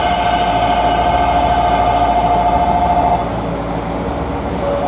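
Electric commuter train standing at a platform with its doors open, its onboard equipment giving a steady whine over a low hum. The whine cuts off about three seconds in, and a lower steady tone starts near the end.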